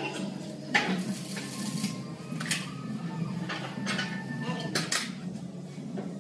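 Steel parts and a large C-clamp clanking and knocking against a fabricated tractor front axle beam on a steel workbench: several sharp metal knocks, over a steady low hum.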